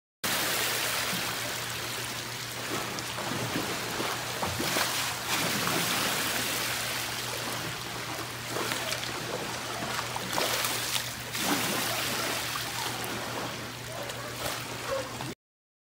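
Swimming pool water sloshing and splashing against the pool walls and over the deck, the waves set off by earthquake shaking. A steady low hum sounds underneath. The sound starts just after the beginning and cuts off about a second before the end.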